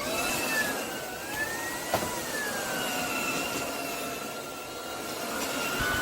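Dreame Z30 cordless stick vacuum switching on and running: a high motor whine over a steady rush of air, its pitch drifting up and down, with a short knock about two seconds in.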